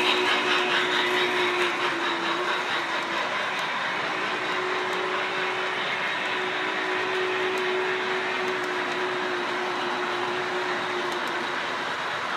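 O-gauge model freight cars rolling past on three-rail track: a steady rumble of metal wheels with a steady hum, easing off a little in the first few seconds as the locomotive pulls away.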